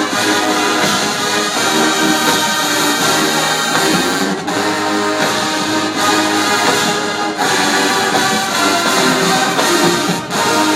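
Marching band playing loud brass-heavy music, trombones and trumpets holding full chords.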